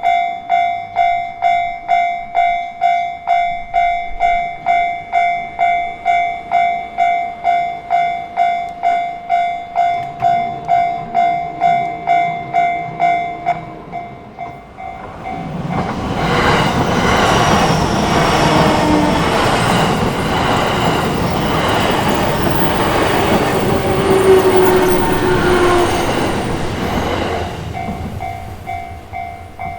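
Japanese level-crossing warning bell ringing in a steady rhythm of about two and a half strikes a second. About fifteen seconds in, a JR Chuo Line electric train passes loudly for around twelve seconds, with rumbling wheel and rail noise and a short whine that drown out the bell. The bell is heard again faintly as the train clears.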